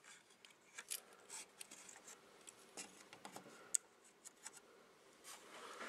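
Faint clicks and soft rubbing as fingers handle the open radio chassis and its wiring. There is one sharper click nearly four seconds in.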